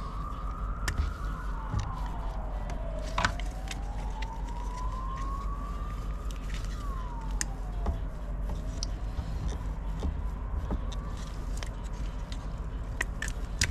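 An emergency-vehicle siren wailing, its pitch rising and falling slowly about every five or six seconds and fading near the end. A few sharp clicks of a plastic wiring connector being handled sound over it, the loudest about three seconds in.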